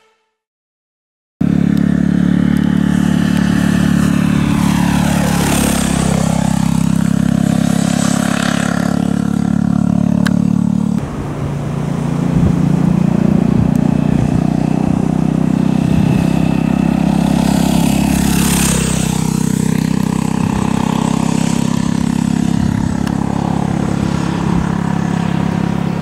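Honda GB350 motorcycle, with its 348 cc air-cooled single-cylinder engine, ridden past at a steady speed with a deep, even exhaust note, passing close twice. The sound changes abruptly about eleven seconds in.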